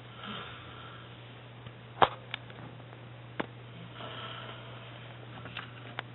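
A sleeping man snoring: a breathy snore at the start and another about four seconds in, over a steady low hum, with a few sharp clicks in between.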